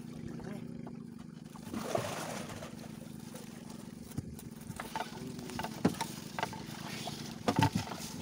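Wet gill net being hauled by hand over the side of an outrigger boat: water splashing and running off the mesh, with scattered sharp knocks against the hull, over a steady low hum.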